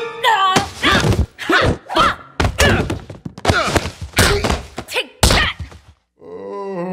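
A rapid flurry of cartoon punches, about ten thumping blows in five seconds, each with a pained cry from the man being beaten. A short pause follows, then a brass music cue begins near the end.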